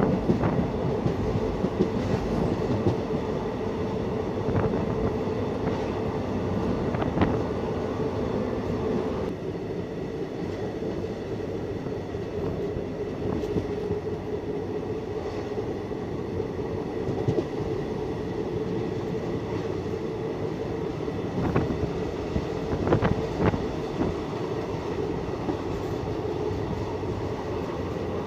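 Indian passenger train coach running along the track, a steady rumble of wheels on rail heard through an open window. A few sharp clacks stand out over the rumble, mostly in the second half.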